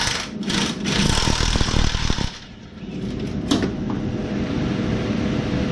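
Impact wrench with a 19 mm socket hammering on a rusted nut: two short bursts, then a rapid rattling hammer for about a second and a half that stops a little over two seconds in.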